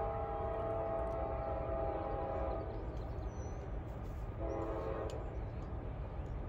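Approaching freight locomotive's multi-note air horn: a long blast that ends about two and a half seconds in, then a short blast about four and a half seconds in, over a steady low rumble. The long-then-short spacing fits the standard long-long-short-long grade-crossing signal.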